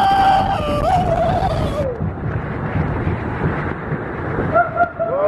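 A man's long held scream on a log flume ride, wavering and then falling away about two seconds in. After that comes a duller, steady rushing noise.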